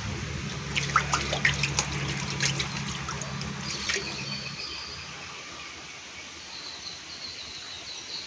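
Pond water splashing and trickling as a hand dips a small container into it and swishes it about, in a run of small splashes that die away about four seconds in. A faint, repeated high chirping follows near the end.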